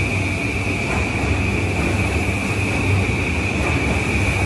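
JR East E235 series 1000 subseries electric train moving along a platform, a steady low rumble with a steady high-pitched tone over it.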